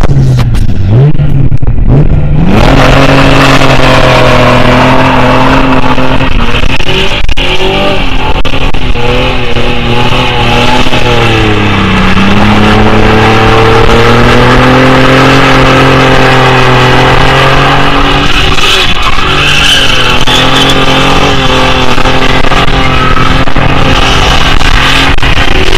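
Holden VP Commodore's 3.8-litre V6 through a 3-inch exhaust, blipped up twice, then held at high revs with the rear tyres spinning in a smoky burnout. The revs sag about halfway through and climb back, then hold steady.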